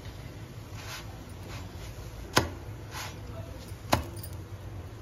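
Utensil knocking against a tawa as a paratha is turned on it: a few soft taps and two sharp knocks about a second and a half apart, over a low steady hum.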